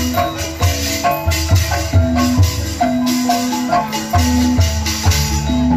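Cirebon gamelan music accompanying a topeng mask dance: struck bronze metallophones ring out melodic notes over a steady drum beat, with a crisp metallic rattle of percussion on top.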